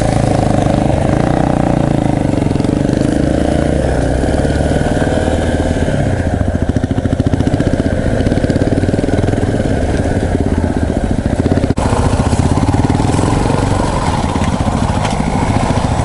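Off-road motorcycle engine running at low speed on a rough dirt track, its pitch rising and falling with the throttle, with a brief break about twelve seconds in.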